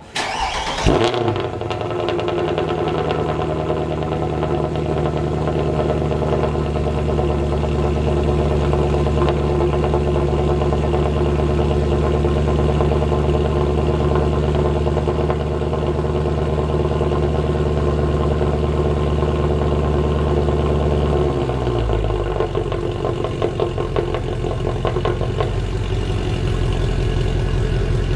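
Mercedes-AMG C63 (W204) 6.2-litre V8 cold start through an aftermarket exhaust with long-tube headers and sport cats. The engine fires and flares, then holds a steady, high fast idle. About 21 seconds in, the idle drops to a lower note as the engine settles.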